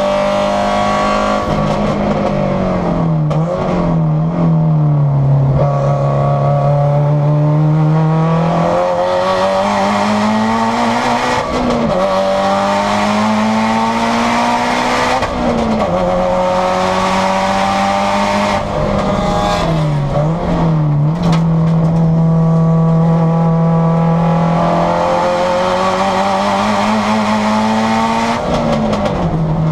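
Modified turbocharged flat-four engine of a 514 awhp Subaru STi race car at full throttle on track, heard inside the caged cabin. Its pitch climbs and then drops sharply at each upshift, several times, and dips briefly with throttle blips on downshifts into corners.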